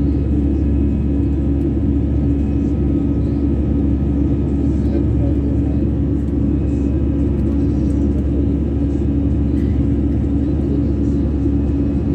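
Airbus A320's turbofan engines running at climb power just after takeoff, heard from inside the cabin over the wing: a steady, loud rumble with a constant low hum.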